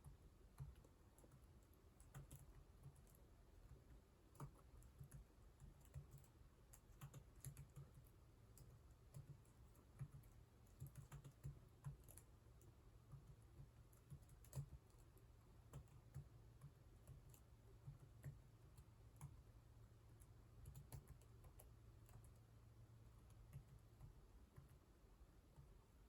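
Faint computer keyboard typing: keystroke clicks at an uneven pace, some noticeably louder than others, over a low steady hum.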